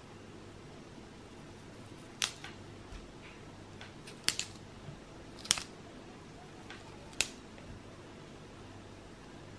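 Raw broccoli florets snapped off the stalk by hand: about five crisp snaps scattered over several seconds, the loudest near the middle, over a faint steady hum.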